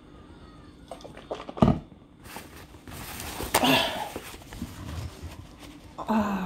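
Drinking from a plastic water bottle with faint small clicks, then a sharp thump about a second and a half in. Paper towel rustles for a couple of seconds as a sheet is pulled off, and near the end a short hummed voice sound comes through the towel held to the mouth.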